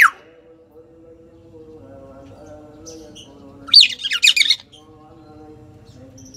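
Common hill myna calling: a loud, shrill whistled call about four seconds in, made of several quick up-and-down notes, with the tail of an earlier call at the very start.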